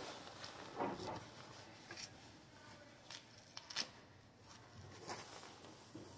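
Hands handling a fabric horse leg wrap: faint rustling with a handful of short scuffs and clicks, the sharpest right at the start.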